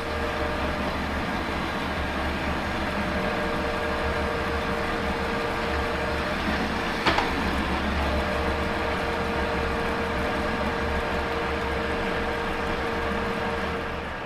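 Metal lathe running with a chrome-plated steel rod spinning in its three-jaw chuck: a steady motor and gear hum, with one brief sharp click about halfway through.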